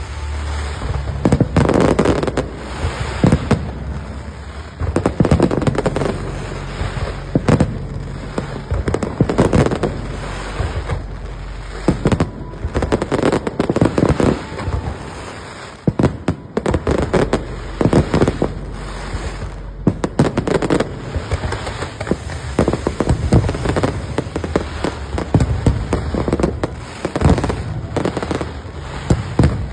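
Fireworks display going off in quick succession: sharp bangs and crackles, several a second at the busiest moments, with no break.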